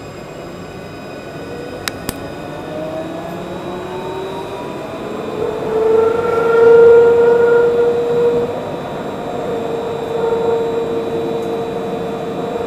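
Luas tram heard from inside the passenger car: its electric drive whines, rising in pitch as the tram gathers speed and then holding steady, over the rumble of wheels on the rails. Two sharp clicks come about two seconds in.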